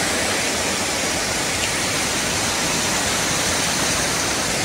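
Small mountain waterfall and the rocky stream cascading below it, rushing steadily.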